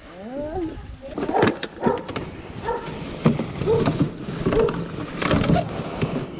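Rummaging in a motorcycle's hard pannier: scattered clicks, knocks and fabric rustling, with a few short voice sounds from a person.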